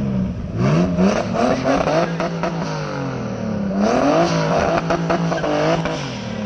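Drift car engines revving hard, the engine note climbing and falling over and over. Two stretches of tyre noise come in, one about a second in and one about four seconds in.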